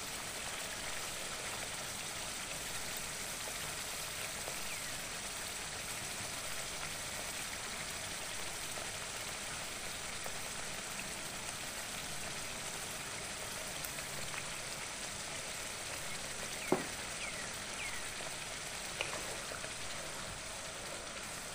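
Chicken bubbling and sizzling in a wok of oil and tamarind water, a steady hiss. Two short sharp knocks in the second half.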